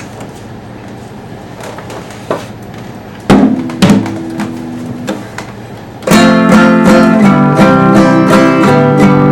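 Six-string guitar strummed. A few faint clicks come first, then two chords are struck about three seconds in and left to ring, and steady strumming begins about six seconds in.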